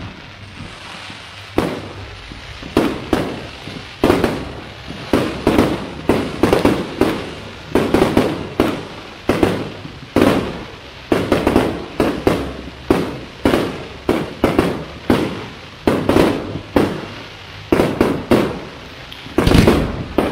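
Aerial fireworks display: a rapid, irregular series of shell bursts, about one to two loud bangs a second, each trailing off in a rolling echo.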